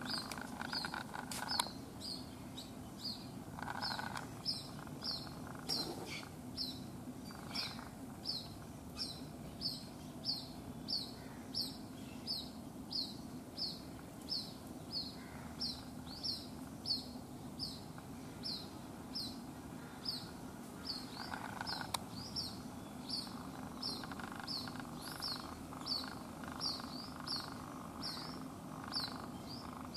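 White-breasted waterhen chick calling non-stop for its absent mother: a steady series of short, high peeping notes, each sliding down in pitch, about two a second.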